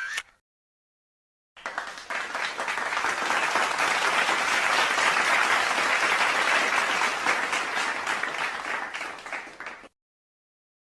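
Crowd applauding, many hands clapping at once. It starts about a second and a half in, swells, then fades out over about eight seconds.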